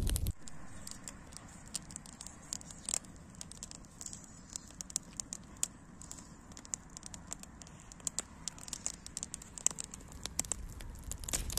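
Wood fire crackling in the open firebox of a metal wood-burning stove: irregular sharp pops and snaps over a soft hiss.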